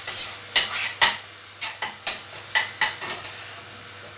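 Chopped onions sizzling in oil in a stainless steel pot as they are stirred, the utensil scraping and clicking against the pot about nine times at an uneven pace.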